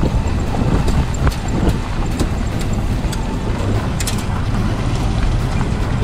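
Graham-Paige 612's six-cylinder engine and tyres running along a gravel road in a steady low rumble, with a few sharp clicks.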